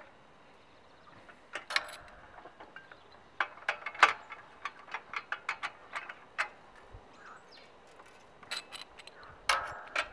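Irregular sharp metal clicks and clinks from a wrench and the steel parts of a homemade angle-grinder cut-off stand being adjusted by hand, with a quick run of taps in the middle. The grinder is not running.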